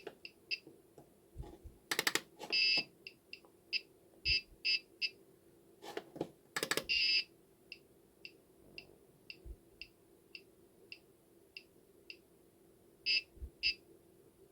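Gotek floppy-drive emulator's piezo buzzer giving short, high-pitched ticks as it steps through tracks while the Amiga 2000 loads from the emulated Workbench disk. The ticks come irregularly, sometimes in quick runs, with a few sharper clicks among them over a faint steady hum.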